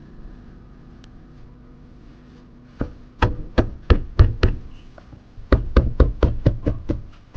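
A hand knocking firmly on a Porsche Taycan's interior door trim panel: a run of about six knocks beginning about three seconds in, a short pause, then about eight more, roughly three a second. The knocking follows taping down loose wiring behind the panel, to check it no longer rattles.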